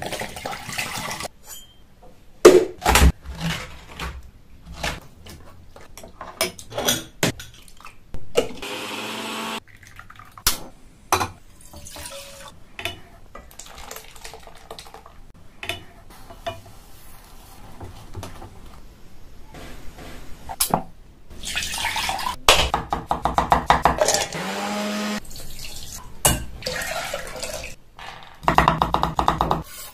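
Close-miked kitchen sounds: tender coconut water pouring from the coconut into a glass bowl, and later liquid poured into a pan, twice with a pitch that rises as it pours. Between the pours come sharp knocks and clinks of utensils on a pan and a wooden board.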